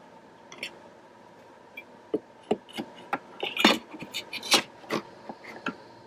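Irregular light knocks and clicks of gloved hands handling a wooden beehive while opening up its entrance, about a dozen, the loudest in the middle stretch.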